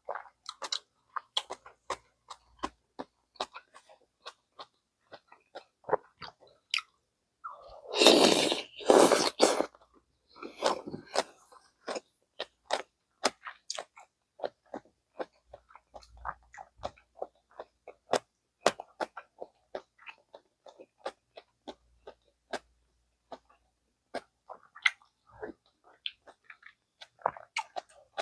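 Close-miked chewing of gamjatang, pork backbone stew: quick wet clicks and smacks of the mouth working through meat, repeated throughout. About eight seconds in come two loud noisy bursts a second apart, then a softer one.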